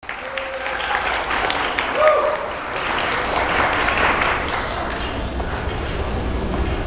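Audience applauding, many hands clapping together, with a few voices calling out over it; the clapping thins out about four and a half seconds in.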